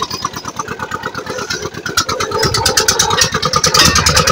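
Diesel engine of a borewell drilling rig running with a fast, steady chug, growing louder about two seconds in.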